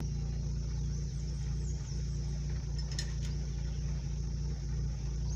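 A vehicle engine running steadily with a low, even hum, with two short clicks about three seconds in.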